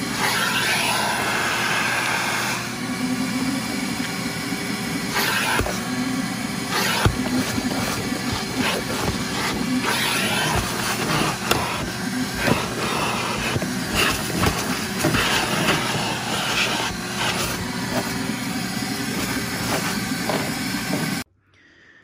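Ridgid 16-gallon, 6.5 peak HP wet/dry shop vac running steadily, vacuuming car floor carpet, with scattered sharp clicks as dirt and debris are picked up. The sound cuts off abruptly near the end.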